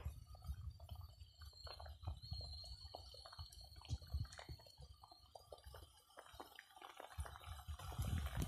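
Coconut-milk curry with catfish and vegetables simmering in a wok: faint, irregular bubbling pops over a low rumble.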